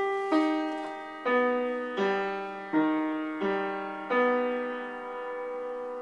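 Piano or keyboard playing a short run of struck notes or chords, about one every 0.7 seconds, each fading after it is struck. The last is held and left to ring out.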